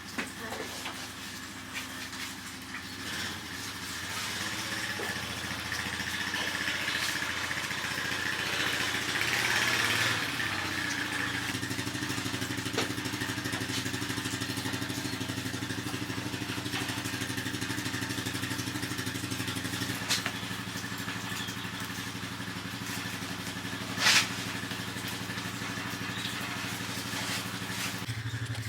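A steady engine-like motor hum with a hiss behind it, its pitch shifting slightly about ten seconds in, and one sharp knock near the end.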